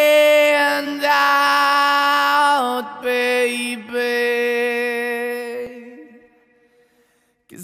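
Music of long held notes that change pitch a few times, fading out about six seconds in, followed by a moment of silence.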